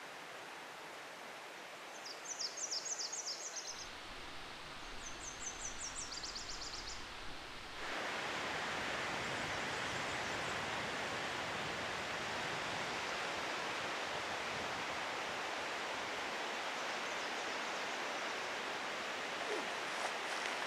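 A small bird sings two short songs of quick, high trilled notes over a quiet stream background. About eight seconds in, the sound changes abruptly to the louder, steady rush of water running over a shallow riffle in a small stream.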